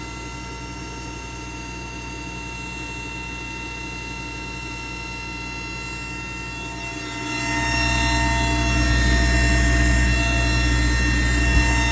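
Running xTool D1 laser engraver set-up, with its air-assist pump and exhaust fan: a steady mechanical whine of several tones. About seven seconds in, a louder low rushing noise joins and keeps on.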